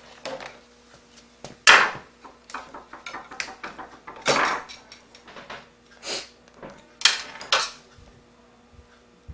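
Irregular plastic and metal clicks, knocks and short scrapes from handling a laptop's display lid while its new screen is screwed in, over a faint steady hum.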